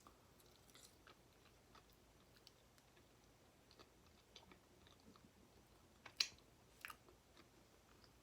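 Faint mouth sounds of someone chewing nacho cheese fries, a scatter of small wet clicks, with two louder sharp clicks about six and seven seconds in.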